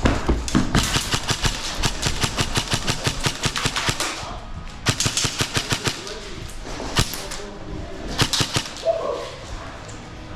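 Airsoft electric rifles firing full-auto: a long rapid burst of shots, then shorter bursts and a single shot.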